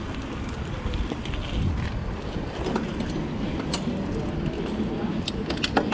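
Specialized Rockhopper 29 hardtail mountain bike being ridden: a steady rumble of tyres on the ground and wind on the microphone, with a few sharp clicks and rattles from the bike, the loudest just before the end.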